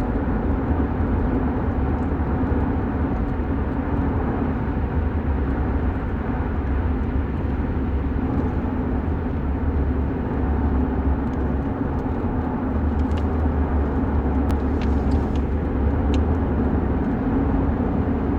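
Steady low vehicle rumble, unbroken, with a few faint ticks in the second half.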